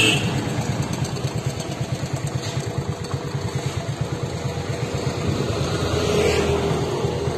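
Motorcycle engine running at low speed, a steady rapid low pulse, swelling slightly about six seconds in.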